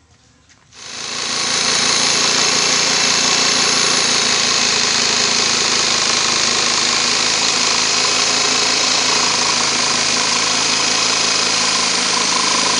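Electric jigsaw switched on about a second in and running steadily at full speed, its blade reciprocating with a loud, even buzz.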